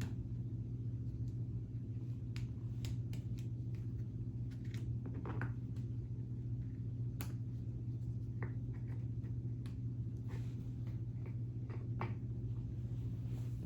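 Scattered light clicks and snaps of K'nex plastic parts as wheels are pulled off a model, over a steady low hum.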